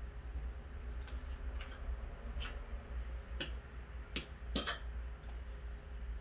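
Scattered light clicks and taps of a plastic oil bottle and paper funnel being handled while engine oil is poured into a small pressure-washer engine's oil fill, with the loudest few close together a little past the middle, over a steady low hum.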